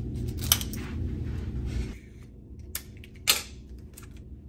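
A metal belt buckle clicks and clinks a few times as a belt is undone. About three seconds in, a short sharp rip comes from a strip of clear adhesive tape being pulled off.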